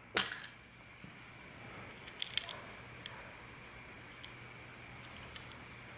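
Small metal carburetor parts clinking and clicking as they are handled and separated by hand: a clink at the start, a short cluster about two seconds in, and a few light clicks near the end, over a faint steady hum.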